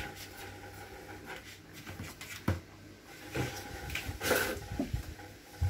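A few light clicks and knocks and a brief scrape a little past the middle, from hands handling the metal front-panel cover flap of an Accuphase E-406V amplifier. The flap is being pressed shut to check that it now sits flush.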